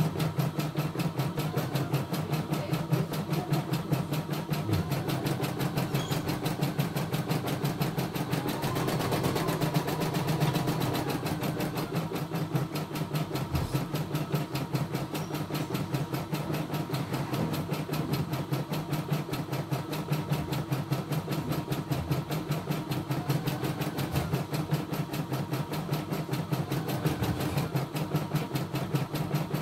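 CNY E960 computerized embroidery machine stitching a design, its needle striking in a rapid, even rhythm.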